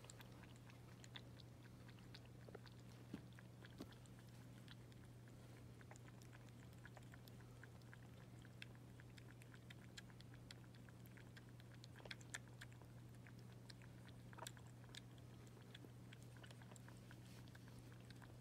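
Faint, irregular wet clicks and smacks of a kitten suckling milk from a small feeding bottle, over a steady low hum.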